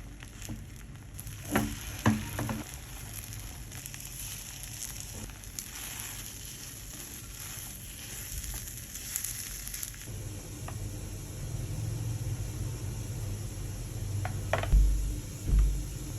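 Food sizzling in hot oil in a frying pan, a steady hiss. A few light knocks come about two seconds in, and two louder thumps near the end.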